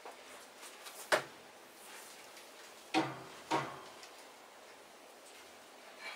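Three short, sharp knocks, one about a second in and two close together about three seconds in, as a pool cue is handled at a pool table before a shot.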